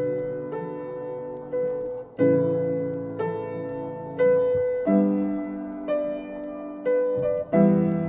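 Solo piano piece: notes and chords struck roughly once a second, each left to ring and fade before the next.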